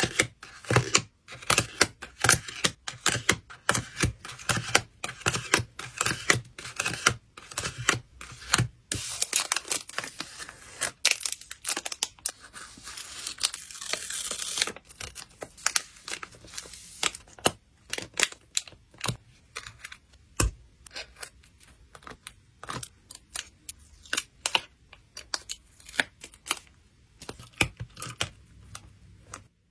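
Hands packing photocards with plastic and paper packing materials: many quick taps, clicks and crinkles. Near the middle there is a stretch of tearing lasting about five seconds.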